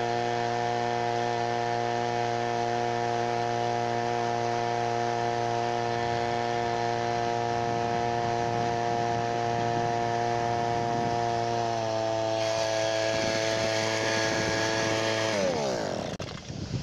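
Homemade outboard motor on an inflatable boat running steadily at a high, even pitch. Its pitch dips slightly about twelve seconds in, then falls quickly and the motor stops near the end.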